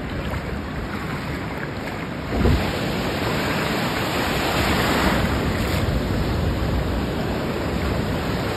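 Ocean surf breaking and washing around a wader, a steady rush of water. About two and a half seconds in there is a thump and the rush grows louder as the waves break close by.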